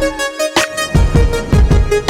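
Montage music: an electronic beat with a heavy, regular kick drum under a melodic line.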